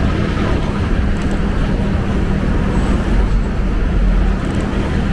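Motorcycle being ridden at a steady speed: the engine holds an even pitch under a heavy rush of wind and road noise, which swells about three seconds in.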